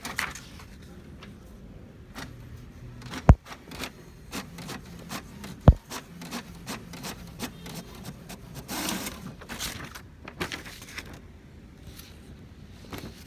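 HP DeskJet 2330 inkjet printer working on a printout: a run of small mechanical clicks and rustles, with two sharp, heavy thumps in the first half.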